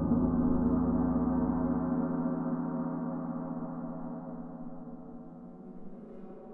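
Struck metal percussion in a contemporary percussion piece: one deep, gong-like ringing note with many overtones, struck at the start, hangs and slowly fades over several seconds.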